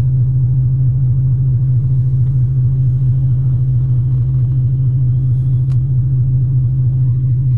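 A car running: a steady low rumble with a constant low hum.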